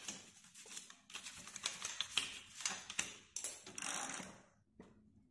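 An old toothbrush scrubbing a soapy bicycle rear derailleur and chain, its bristles scratching and clicking rapidly and unevenly over the metal, with a short hiss about four seconds in.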